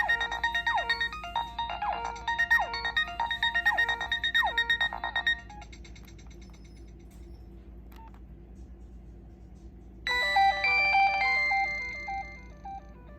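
Nokia 6016i mobile phone playing its built-in ringtones. The first tune, with a repeated falling swoop, stops about five seconds in. After a pause of about four and a half seconds, a different tune starts near the end.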